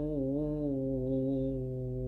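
A man chanting Quran recitation in tartil style, holding one long drawn-out note at a steady pitch with a slight waver.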